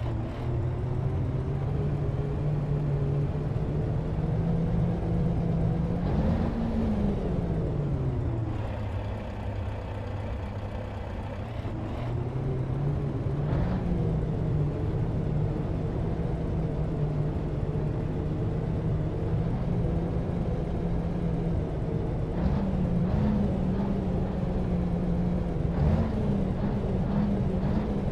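Scania R520's V8 diesel engine on its stock exhaust, running with its engine speed rising and falling several times: a swell about six seconds in, a lower stretch, another brief rise near thirteen seconds, then a few short blips near the end.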